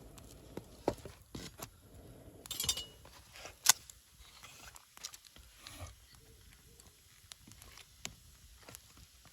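Wood campfire crackling: irregular small snaps and pops, with a short hiss about two and a half seconds in and one sharp, loud pop about a second later.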